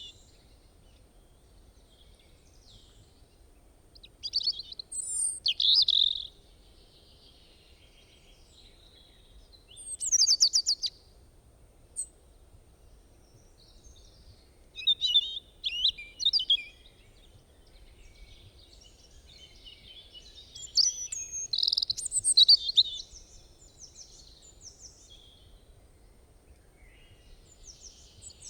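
Songbirds singing and calling in separate bouts of high chirps and trills, with quiet gaps of several seconds between them; one bout about ten seconds in is a fast run of rapid repeated notes.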